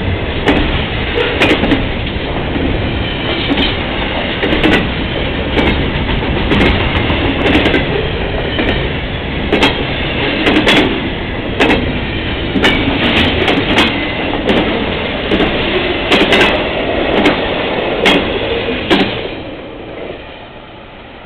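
Double-stack intermodal freight train cars rolling past at speed: a steady rumble with frequent irregular sharp clacks from the wheels on the track. The sound falls away sharply about nineteen seconds in.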